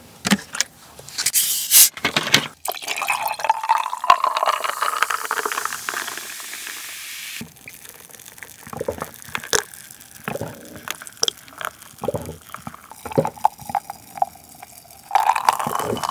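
A plastic bottle of cola is opened with a short hiss, then poured into a small glass, the pitch of the filling rising as the glass fills. Then come small gulps and clicks as the cola is drunk from the glass.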